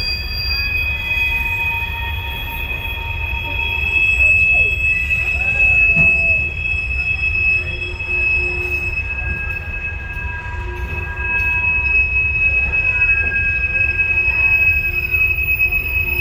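Empty phosphate covered hopper cars of a freight train rolling past, their wheels squealing in several steady high tones over a constant low rumble.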